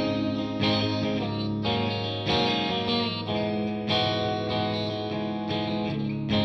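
Electric guitar playing chords through a Surprise Sound Lab Flex15 single-ended Class A tube amp set to 25 watts, heard through a miked 4x12 speaker cabinet. A new chord is struck roughly every second and each is left ringing.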